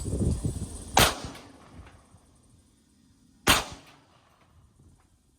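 Two single shots from a .40-calibre Glock 22 pistol, about two and a half seconds apart, each a sharp crack with a short echo.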